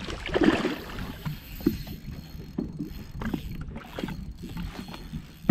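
Lake water sloshing and slapping against a small boat's hull and around a landing net held in the water, in irregular small splashes, with a louder burst of sloshing about half a second in.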